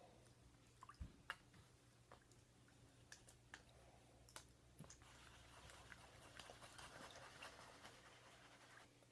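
Very faint clicks and taps of slime ingredients being mixed in small cups, with a soft scraping rustle of stirring from about five seconds in, over a low steady hum; otherwise near silence.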